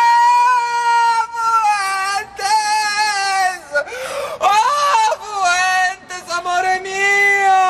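A young man wailing and sobbing in long, high-pitched cries, each drawn out for a second or two, with short breaks between them.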